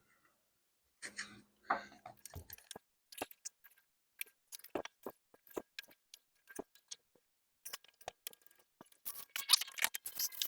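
Handling noise as coax cable is worked through a rubber grommet and the grommet cap is fitted: scattered small clicks and scrapes, getting busier and louder near the end.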